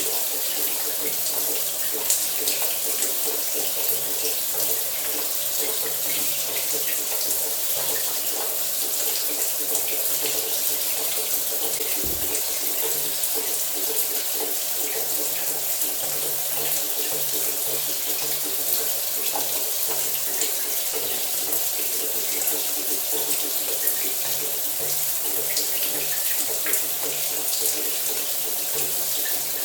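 Shower running steadily: an even hiss of falling water spray, with a faint low hum beneath it.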